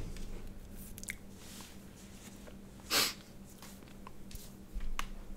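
Quiet room tone with a steady low hum, a few faint clicks, and a short hissing noise about three seconds in.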